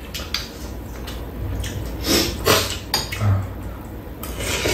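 Metal spoons and chopsticks clicking and scraping against ceramic bowls and a frying pan during a meal, in scattered short clinks with a few brief louder scrapes around the middle and near the end.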